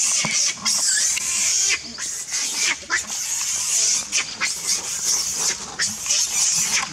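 Macaques making short grunts and squeaks in the trees, over a steady high hiss.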